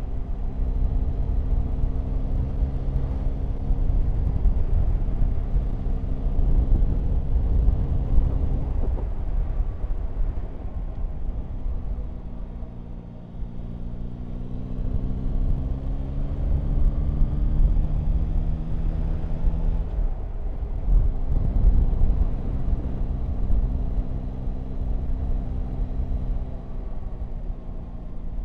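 Yamaha Tracer 9 GT's three-cylinder engine running under way, holding a steady note, then easing off about 13 seconds in and rising slowly in pitch as the bike picks up speed again. A low rush of wind and road runs beneath it.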